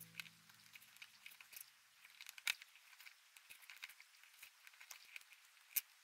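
Small plastic Lego bricks being handled and pressed together: faint scattered clicks and rattles, with two sharper clicks about two and a half seconds in and near the end. A music track fades out in the first second.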